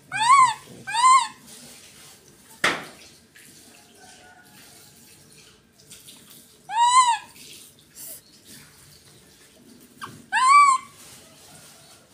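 A caged monkey giving short calls that rise and fall in pitch, four in all: two close together at the start, one about seven seconds in and one near the end. A single sharp knock comes between the first pair and the third.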